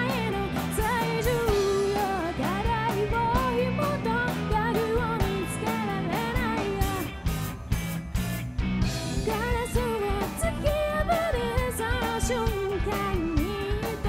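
Live rock band playing: a woman sings the lead melody over electric guitars and drums, her singing pausing briefly about halfway through while the band plays on.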